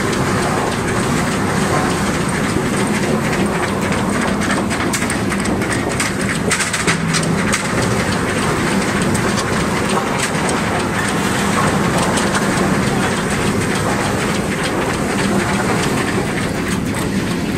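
Tooth roller log debarker running: a loud, steady mechanical din with a hum underneath and irregular knocking and clattering of logs against the toothed rollers as the bark is stripped.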